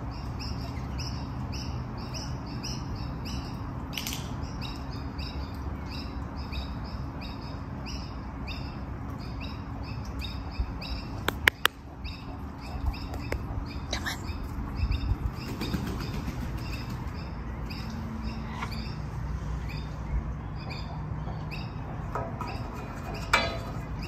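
A bird chirping over and over in a quick, regular run of short high notes, over a steady low hum; a few sharp clicks about halfway through.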